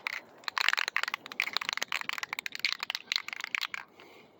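Aerosol spray paint can being shaken, its mixing ball rattling inside as dense rapid clicks.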